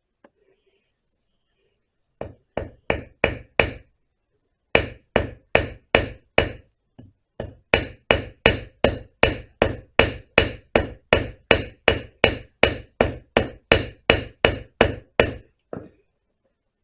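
Ball peen hammer striking a chainsaw chain rivet to peen it over, splicing a .404 chain. Sharp, ringing metallic taps: a short run of about six, a brief pause, then a long steady run at about two and a half blows a second, with one last tap near the end.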